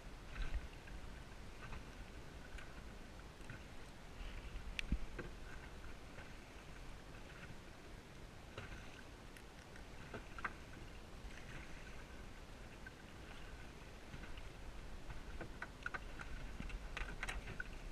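Water lapping quietly against a small inflatable dinghy drifting with its outboard off, with scattered light clicks and taps as fishing gear is handled in the boat.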